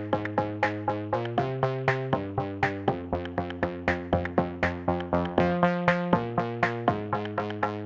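Electronic background music: synthesizer chords over a steady, quick drum-machine beat.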